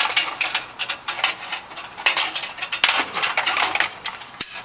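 Irregular metallic clinks, taps and scrapes of a motherboard being set into a PC case and shifted so its screw holes line up with the standoffs.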